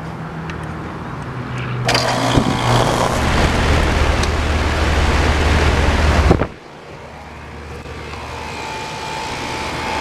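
A Lennox 5-ton central air condenser starts up when its disconnect is thrown. About two seconds in, the compressor and condenser fan kick on with a loud rush of air over a strong low hum. About six seconds in, the sound cuts off abruptly, leaving a quieter steady hum.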